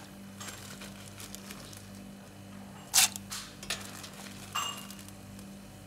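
Blanched peanuts frying in a pot of hot oil, with a steady light sizzle. A few sharp clicks cut through it, the loudest about three seconds in and fainter ones shortly after.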